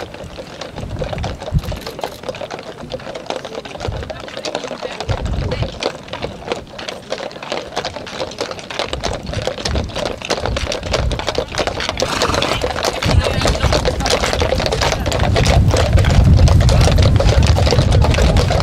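Shod hooves of a group of heavy draught horses clip-clopping on a paved lane, a dense overlapping clatter that grows louder about two-thirds of the way through as the horses pass close by. Wind rumbles on the microphone at times.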